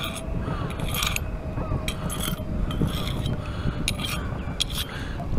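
Metal three-pronged hand cultivator scraping and prying through sand and gravel under shallow water, digging out a buried glass bottle: irregular scrapes and clicks over a constant low rumble.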